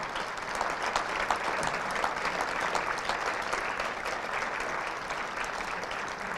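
Audience applauding steadily in an auditorium, many hands clapping at the end of a talk.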